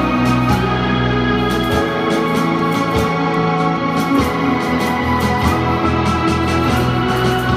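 Live band music on electric guitar, drum kit and keyboard, with held chords over regular drum hits. The chord changes about four seconds in and again about five and a half seconds in.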